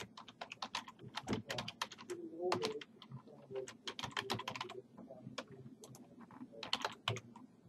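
Computer keyboard typing: quick runs of keystrokes with brief pauses, the thickest run in the first three seconds and shorter runs after.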